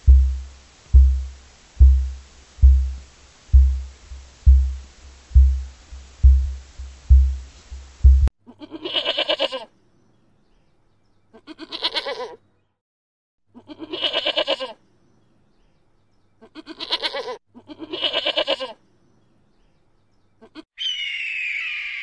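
A young domestic goat bleating five times, each bleat about a second long with pauses between. Before that comes a run of deep, low thuds about one a second, quickening slightly. Near the end a high, wavering bald eagle call begins.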